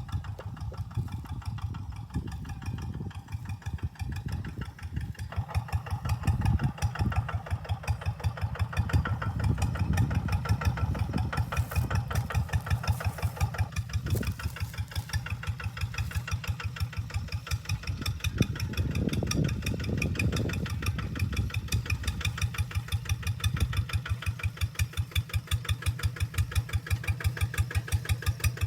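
Hand tractor engine running at a steady idle with an even, regular thumping beat.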